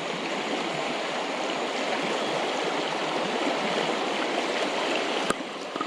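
Steady rushing of a flowing river over rocks.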